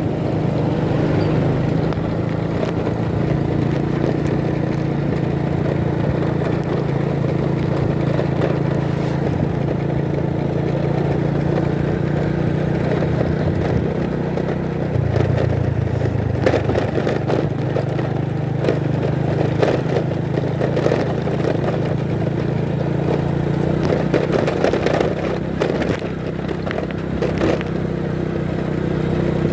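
Motorcycle engine running steadily while riding, with road noise. About halfway through the engine note shifts lower, and short knocks and rattles follow in the second half.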